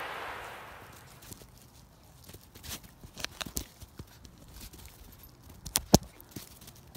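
Handling noise on a phone's microphone as the phone is jostled by a playing puppy: scattered clicks and knocks, with a sharp knock about six seconds in, after a hiss that fades out during the first second.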